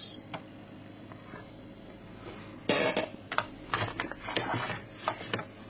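Amiga 1200 computer starting up just after power-on: a quick, irregular run of sharp mechanical clicks and ticks begins about halfway in and lasts a few seconds.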